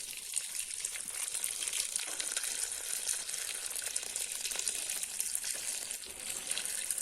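Boiled water being poured steadily from a vessel into a cooking pot over snails, a continuous gushing splash.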